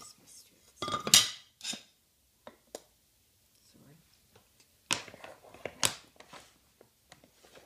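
A few sharp clinks and knocks of a piece of glass and the metal angle-copier cutting rig being handled and set down on a worktable, with a short scrape as the glass slides. The loudest knock comes about a second in, and another cluster comes around five to six seconds in.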